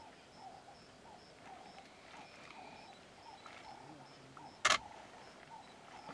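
A single sharp click of a camera shutter about two-thirds of the way in, over faint, regular chirping that repeats about twice a second.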